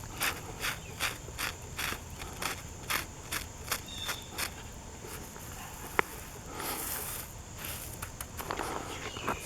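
Footsteps on a loose asphalt-millings driveway, about two to three steps a second, stopping about halfway through. A single sharp click comes about six seconds in.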